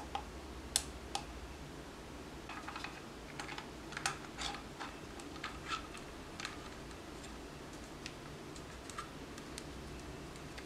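Scattered small clicks and taps of hands handling a caged GoPro and fitting a small LED video light onto its mount. The clicks are busiest from about two to six seconds in, with a sharp single click near the start.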